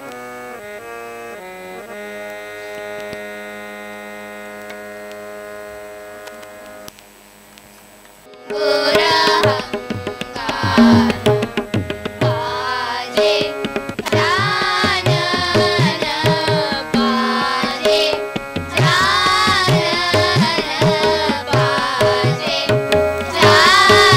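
A children's group song with harmonium closes on a long held harmonium chord that slowly fades. After a short pause about eight seconds in, a different piece of Indian-style music begins, with a singing voice gliding between notes over a drum beat.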